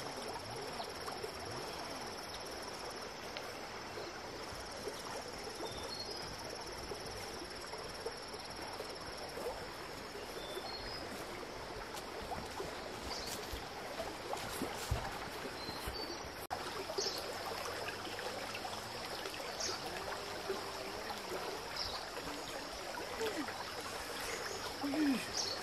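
Natural forest ambience: a steady high insect trill over an even background hiss, with a few faint short chirps.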